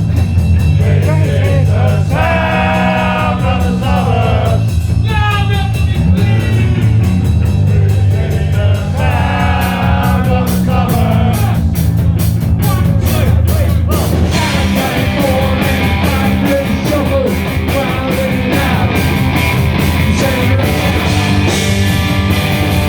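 Punk rock band playing live, with steady drums and bass under sung lines that come and go. The sound grows fuller and denser about two-thirds of the way through.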